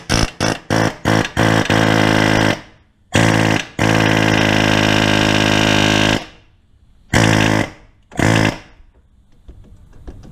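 Pneumatic air hammer with a pickle fork, driving apart a stubborn lower ball joint. It fires in quick short bursts on the trigger, then runs as a steady buzzing hammering for a couple of seconds at a time, stops for a moment, and finishes with two short bursts.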